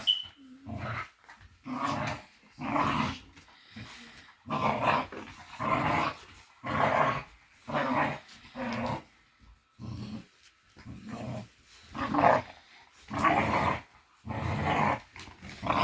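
A merle bully pup and a young pit bull growling while tugging at a small rope. The growls come in short, rough bursts, roughly one a second, with brief pauses between them.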